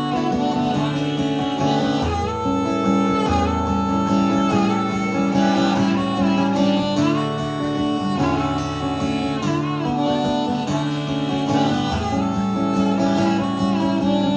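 Country band playing an instrumental break between verses: guitar chords with a lead melody of sustained, sliding notes.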